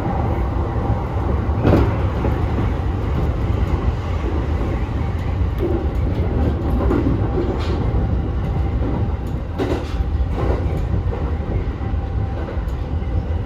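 JR E231 series 0-bandai electric train running, heard from inside the front car: a steady low rumble with a few sharp clacks spread through it.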